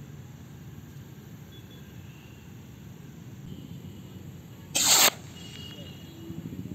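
A Diwali rocket bomb bursting high up: one short, loud bang about five seconds in, over a faint steady background.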